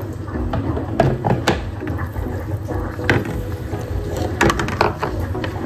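Scattered light knocks and clicks of a glass bowl and plastic cup being handled on a tabletop, about half a dozen over several seconds.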